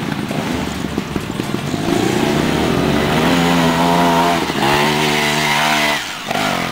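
TRS 250cc two-stroke trials motorcycle climbing a steep dirt hill, its engine revving in repeated rising surges. The revs cut off sharply about six seconds in as the bike reaches the top.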